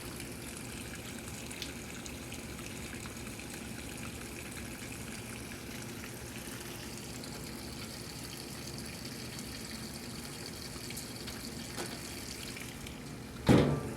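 Washing machine running with a steady rushing, watery noise over a low hum, and a faint high tone that steps up in pitch about halfway through. A single loud thump comes near the end.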